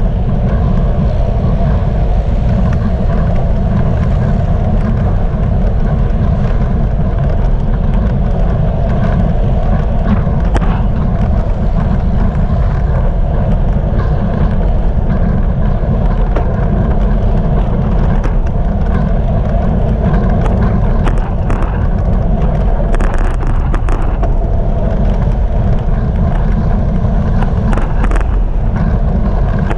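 Steady low rumble of wind buffeting a bike-mounted GoPro's microphone, mixed with road and car traffic noise while riding in traffic. A few short light clicks or rattles come past the middle and again near the end.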